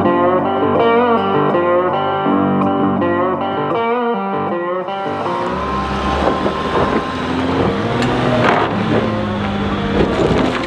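Background guitar music, which about five seconds in gives way to a lifted Mercedes Sprinter 4x4 van driving on a rough dirt track: engine running, tyres crunching and clicking over loose rock and gravel.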